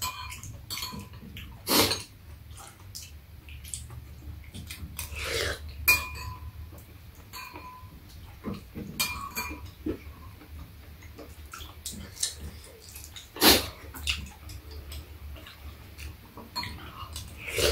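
Metal spoons and chopsticks clinking and scraping against ceramic bowls during a meal of soup and rice, in irregular light taps. There are a few louder clinks, about two seconds in and again past the middle.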